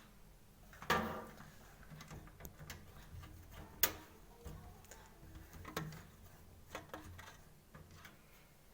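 Screwdriver driving motherboard mounting screws into a computer case: scattered small metallic clicks and clinks, the loudest about a second in and another near four seconds in.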